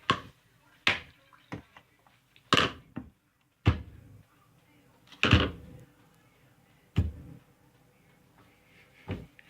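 A series of about seven separate knocks and clatters, a second or so apart, with short tails on two of them, as containers and utensils are handled and set down while slime ingredients are being added.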